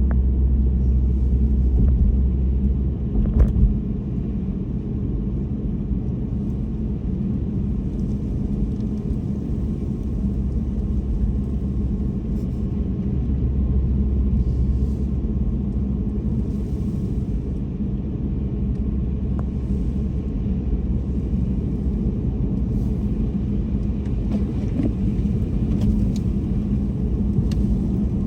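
Car driving, a steady low rumble of tyres and engine, with a brief thump about three seconds in.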